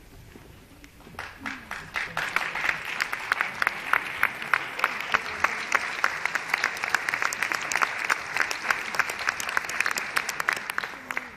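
Audience applauding; the clapping starts about a second in and stops near the end.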